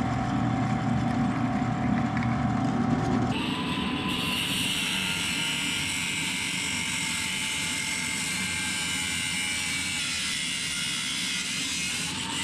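A steady mechanical running noise from shop equipment. About three seconds in, its low hum and steady tone give way to a brighter, higher hiss.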